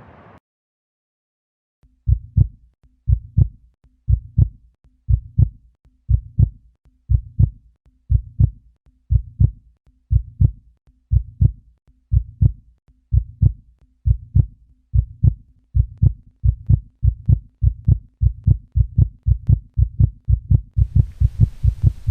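Heartbeat sound effect: low double thumps that start about two seconds in and speed up steadily, from about one beat a second to about two.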